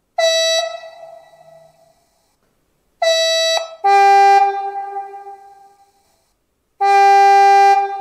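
Diesel locomotive signal horn, a V 160 horn recording played by an ESU LokSound 5 XL sound decoder through a model locomotive's loudspeaker. It sounds three times: a short high note, then a high note dropping to a low one in a two-tone blast, then a longer low note, each ringing on briefly after. The decoder picks single or double tones at random.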